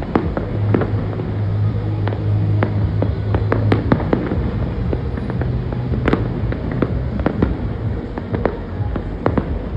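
Aerial fireworks display: a rapid, uneven run of bangs and crackles from bursting shells, over a steady low hum.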